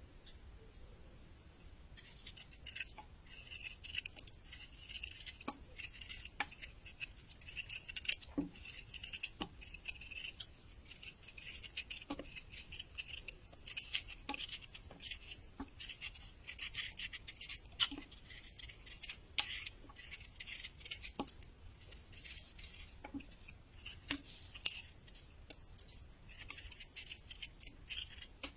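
Close-up crunching and chewing of raw young ginger: a dense run of crisp crackles with scattered sharp clicks and soft knocks, starting about two seconds in.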